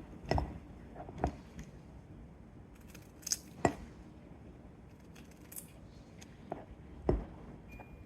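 Kitchen scissors snipping through cucumbers: a handful of separate sharp snips at irregular intervals, possibly with pieces dropping into a glass jar.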